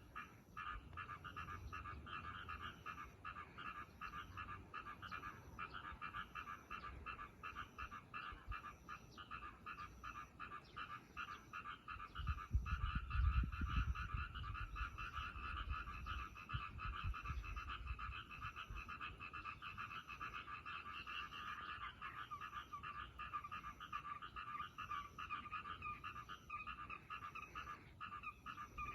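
A chorus of many frogs calling from a ditch, a dense, unbroken rattle of rapid pulsed croaks. A low rumble rises under the chorus about twelve seconds in and fades out some six seconds later.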